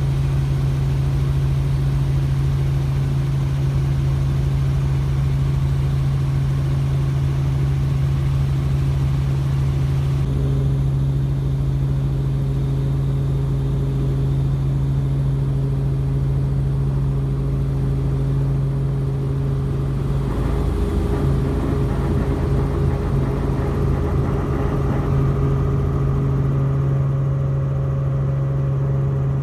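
Helicopter running: a loud, steady drone with a strong low hum. The hiss lessens about ten seconds in, and a higher tone joins near the end.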